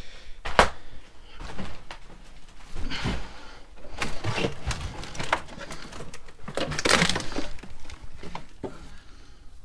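Loose wooden boards and debris knocking, scraping and cracking as they are shoved aside and stepped on, a string of separate knocks and scuffs. The loudest is a sharp crack about half a second in, with another cluster around seven seconds in.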